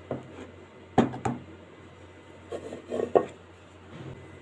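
Round metal cake tin knocked and tapped against a wooden board to turn out a baked sponge cake: a few sharp knocks, the loudest pair about a second in and another cluster around three seconds in, with some rubbing of metal on wood.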